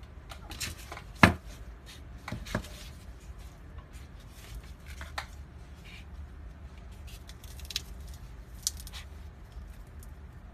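Handling noise from a plastic-bodied dive flashlight with an aluminium head as it is picked up off a table and turned over in the hands. There is a sharp knock about a second in, another a second later, then scattered light clicks and scrapes.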